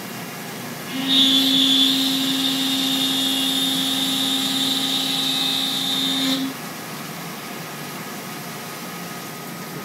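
Willemin-Macodel W408B five-axis mill cutting stainless steel with an end mill under flood coolant: about a second in, a steady high whine with a lower tone beneath it rises as the cutter works, holds for about five seconds and then stops, over the constant hiss of coolant spray.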